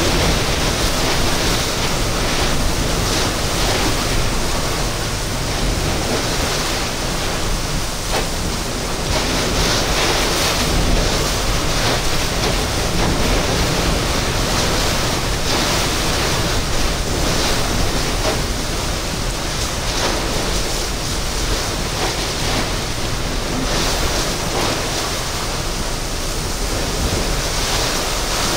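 Heavy wind-driven thunderstorm rain beating on a vehicle, heard from inside the cabin, with strong wind that swells and eases in gusts.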